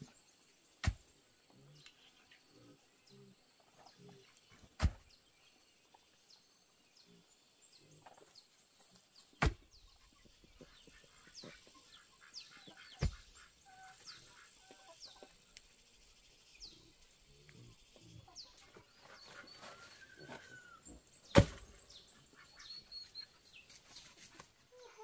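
Chickens clucking and small birds chirping in quick high falling notes, with five sharp knocks spread through, the loudest near the end.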